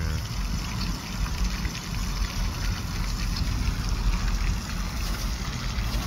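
Floating pond fountain aerator throwing jets of water that come down smacking onto the pond surface: a steady rushing splash over a low rumble.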